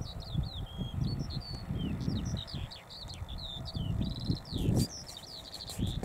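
Eurasian skylark singing in flight: an unbroken, fast stream of varied high chirps, warbles and short trills, over an uneven low rumble.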